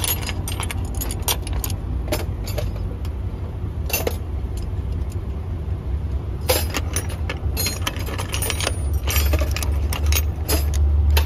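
Scattered metal clinks and knocks of parts and tools being handled during work on a truck's radiator, over a steady low hum that grows louder near the end.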